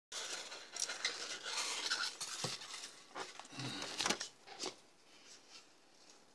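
Steel guitar strings being handled and threaded through a Telecaster-style body and bridge: rustling with light metallic clicks and scrapes, busiest over the first four seconds and quieter after.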